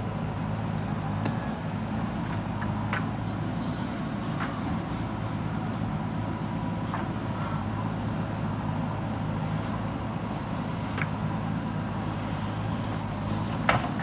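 JCB 3DX backhoe loader's diesel engine running steadily while the backhoe arm works, with a few scattered clicks and one sharper knock near the end.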